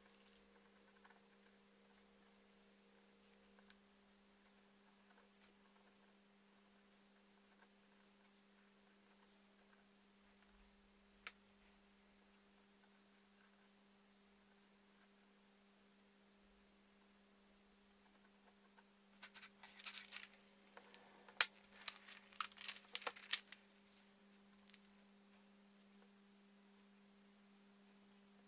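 A quiet room with a steady low electrical hum and a single click. In the last third come several seconds of crisp, scratchy paper rustling as a sheet of pattern paper is handled and drawn on.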